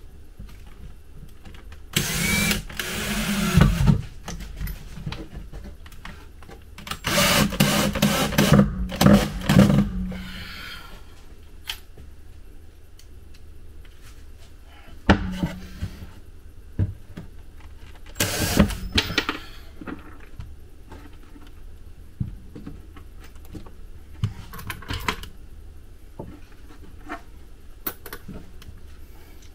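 Cordless drill running in short bursts against timber boards, driving screws into the wood. There are four main runs of a couple of seconds or less, with small knocks and clicks between them.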